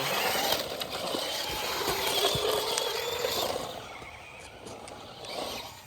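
Radio-controlled monster truck running hard: a wavering motor whine over a loud rush of noise for about three and a half seconds, then easing off.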